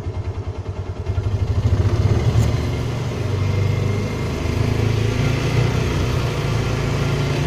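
Engine of a Polaris Ranger side-by-side utility vehicle, first idling with an even throb, then picking up about a second in as it pulls away in low gear and running steadily at low speed.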